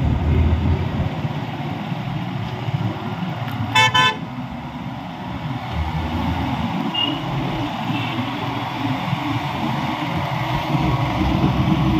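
Steady road and traffic noise from riding a motorcycle in town traffic. A single vehicle horn honks for about half a second, about four seconds in.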